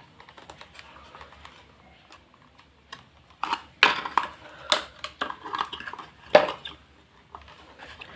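Irregular clicks and knocks of a plastic computer-speaker housing and its circuit board being handled as the board is worked loose, with a cluster of sharp taps in the middle seconds.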